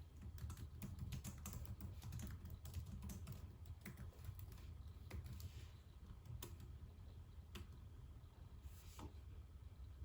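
Typing on a computer keyboard: a quick run of key clicks over the first few seconds, then slower, scattered keystrokes.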